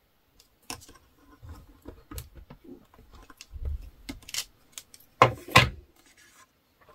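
Hands pressing a clear stamp on an acrylic block onto a kraft cardstock panel, giving light rubbing and small taps. Two sharp clacks come about five seconds in, as the acrylic block is lifted off and set down on the table.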